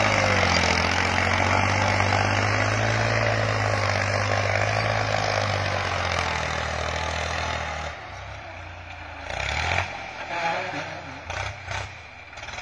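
New Holland tractor's diesel engine running steadily under load as it pulls a disc plough through soil. About eight seconds in the sound drops to a fainter, uneven engine noise as the tractor works farther off, with a few brief louder swells.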